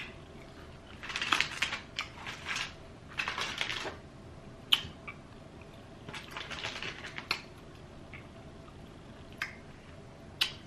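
Crunching bites into crispy Popeyes fried chicken and chewing, in several short crackly bursts, with a few sharp single clicks or mouth smacks in between.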